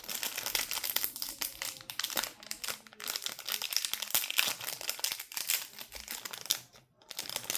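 Small plastic packaging crinkling and crackling as it is handled and opened by hand, a dense run of irregular crackles that eases off near the end.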